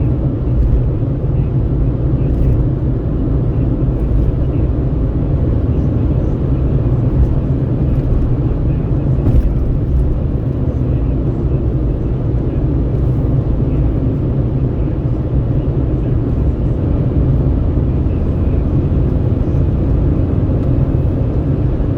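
Steady road noise inside a moving vehicle at highway speed: a continuous low rumble of tyres and engine with wind at the window.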